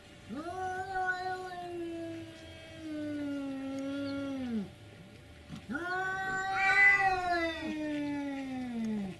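Cats caterwauling in a face-off: two long, drawn-out yowls of about four seconds each. Each slowly falls in pitch, and the second is louder.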